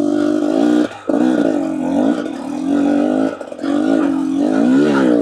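KTM EXC 250 enduro motorcycle engine running hard off-road, revs rising and falling with the throttle, which is shut off briefly about a second in and again around three and a half seconds in.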